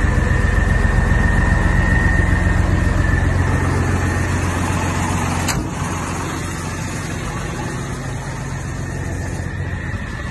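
Turbo-diesel truck engine idling steadily, with a thin high whine over the first few seconds. A click about halfway through, after which the engine is a little quieter.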